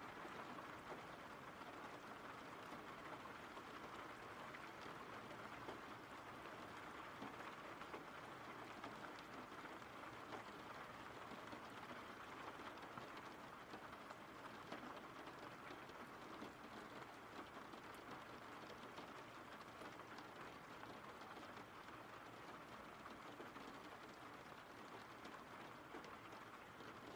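Faint, steady rain: an even hiss with many fine drop ticks.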